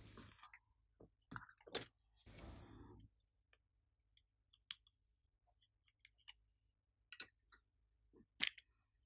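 Glossy slime being poked and stretched, giving scattered small sticky clicks and pops, with one brief squishing rustle about two seconds in.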